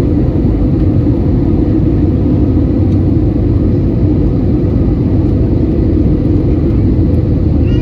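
Airbus A320 cabin noise heard from a window seat over the wing: a steady rumble of jet engine and airflow during the approach descent.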